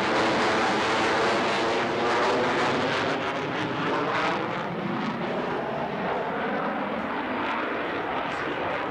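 F/A-18 fighter jet's engines during a flyby: loud, steady jet noise with a slowly shifting, phasing tone, easing off a little about halfway through.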